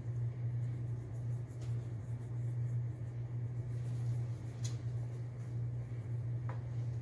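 Steady low hum of room equipment, with a few faint ticks and light rustles.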